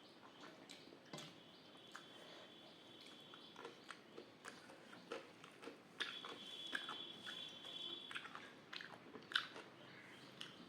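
Close-up chewing and wet mouth clicks of someone eating, with occasional crisp crunches and one sharp click near the end. A faint high steady tone comes and goes twice.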